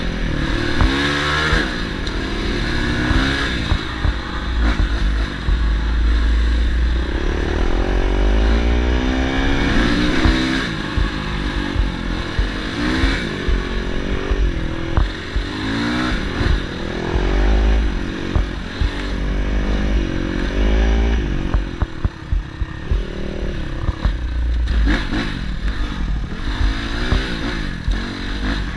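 Single-cylinder dirt bike engine under way, revving up and easing off again and again as the rider works the throttle and gears on a rough trail, over a steady low rumble of wind on the microphone.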